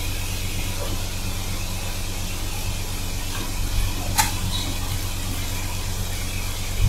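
Steady low hum of kitchen machinery over a faint even hiss from a wok of food frying on a gas burner, with a single sharp click about four seconds in.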